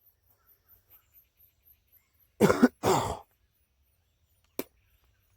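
A man coughing or clearing his throat, two quick rough bursts about two and a half seconds in, then a single sharp click near the end.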